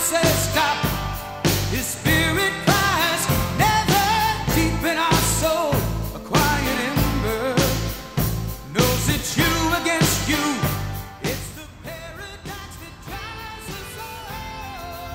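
Background pop-rock song: a sung vocal line over drums and bass, dropping to a quieter, sparser passage about eleven seconds in.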